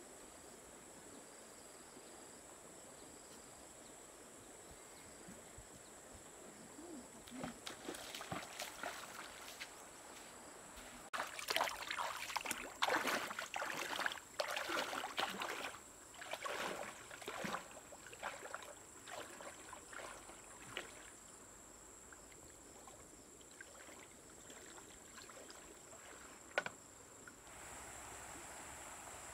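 Feet wading through a shallow stream: irregular splashing of water, loudest in the middle and thinning out after. Near the end, a steady rush of flowing river water.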